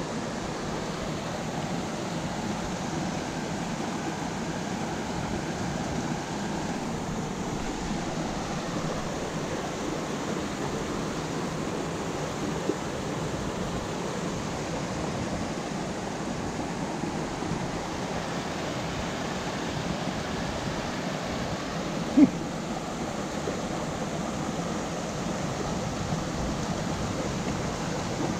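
Mountain creek rushing steadily over rocks in small cascades. A single brief sharp knock sounds about three-quarters of the way through.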